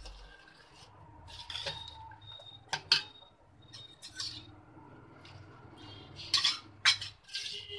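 Steel spoon stirring milk in a stainless-steel pot, scraping and clinking against the sides, with sharp clinks about three seconds in and twice more near the end. The milk is being stirred as citric acid is added to curdle it into chhena.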